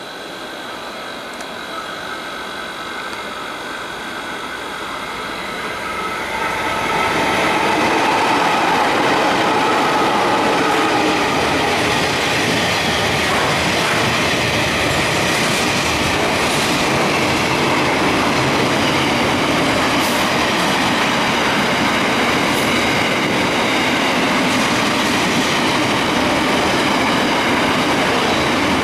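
Container freight train approaching and running through the station at speed. The noise grows over the first seven seconds, then the wagons' wheels on the rails keep up a steady, loud noise as the containers go by.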